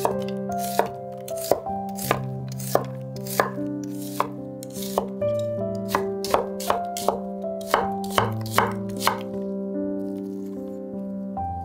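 Knife chopping vegetables in sharp, somewhat uneven strokes, about two a second, stopping a little before the end, over background music of soft held notes.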